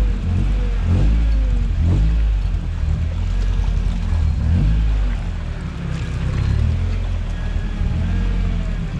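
Toyota truck's engine running at low revs while crawling over an off-road trail, its pitch shifting with the throttle. There are a few knocks about a second, two seconds and four and a half seconds in, and near the end a faint whine rises and falls in pitch.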